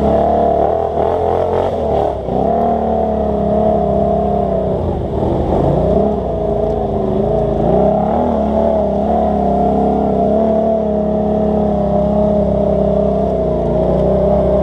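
ATV engine running under throttle on a muddy trail, its pitch wavering up and down as the rider eases off and gets back on the gas, with a clear dip and climb about a third of the way through.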